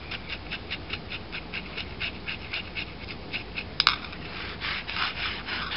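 Paintbrush scrubbing against the plastic container of an HO-scale stack car model, in quick, even, scratchy strokes about six a second. There is a sharp click about four seconds in.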